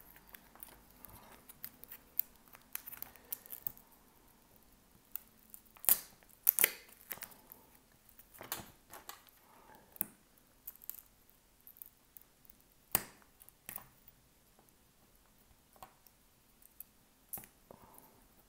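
Scattered small clicks and scrapes of a tool picking shattered back glass off an iPhone 13 after the adhesive has been heated. A few sharper cracks come about six and thirteen seconds in.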